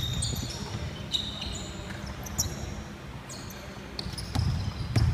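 Basketball game on a hardwood court: sneakers squeaking in short, high chirps and the ball bouncing with sharp knocks, in a large reverberant hall.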